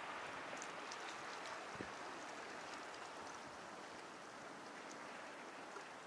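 Sea water washing against the shore: a steady hiss of small waves with faint crackling.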